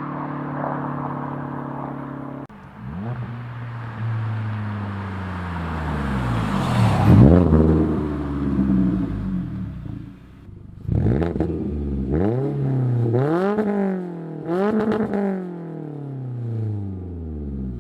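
Scion tC's four-cylinder engine revving through a newly welded-in Magnaflow muffler. The engine runs steady at first, then its pitch climbs and falls away in a long pull, followed by four quick sharp revs in a row before it settles back down.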